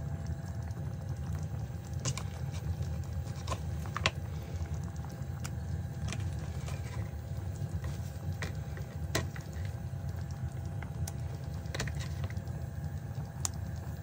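A pan of tomato-based menemen simmering on a gas stove: a steady low rush with scattered small pops and clicks.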